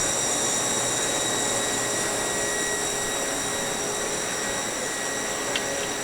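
2013 Haas Super Mini Mill 2 CNC vertical mill running its cycle: a steady high-pitched whine over a constant hiss, with a small click near the end.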